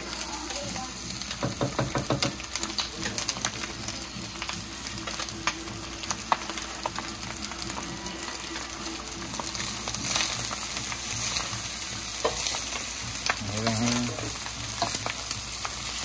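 Fried rice sizzling in a wok as it is stir-fried with beef, shrimp, egg and vegetables, with frequent clicks and scrapes of the stirring against the pan.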